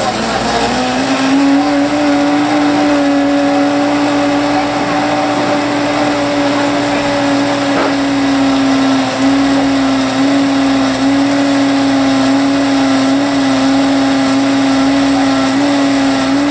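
Vitamix commercial blender motor finishing its spin-up to high speed about a second in, then running at a steady high pitch with slight dips now and then as it blends crushed ice and a whole avocado into a smoothie.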